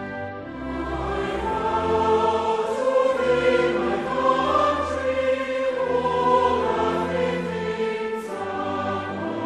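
Choir singing sustained notes over an orchestral accompaniment.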